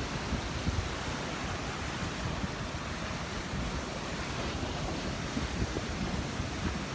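Gulf of Mexico surf washing steadily onto the beach, with wind buffeting the microphone.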